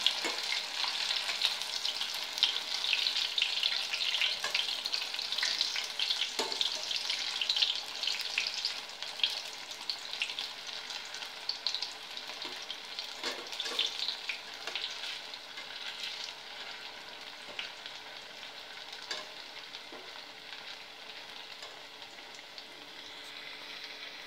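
Batter-coated chapati pieces deep-frying in hot oil in a steel pot, with steady sizzling and crackling and a few clinks of a wire skimmer as the pieces are turned. The sizzling is strongest in the first several seconds, then gradually dies down.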